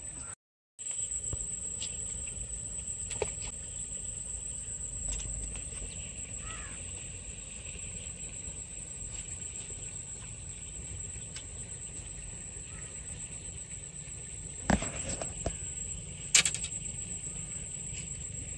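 Steady outdoor ambience with a constant high-pitched insect-like whine, broken by a brief dropout near the start. Several sharp clicks and knocks from handling a fishing rod and line, the loudest a few seconds before the end.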